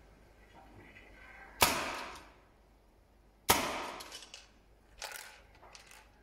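Speedball paintball marker firing twice, about two seconds apart: two sharp cracks, each with a short ringing tail, followed by a fainter knock near the end.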